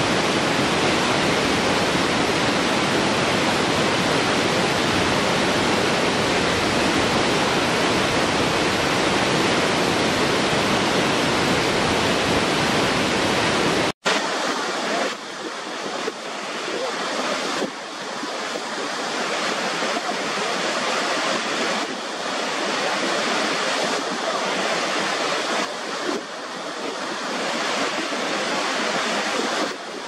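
Steady rushing water of a waterfall cascading down rock tiers. About halfway through it cuts off suddenly and changes to water pouring over the brink of a large waterfall, thinner in the low end and with wind on the microphone.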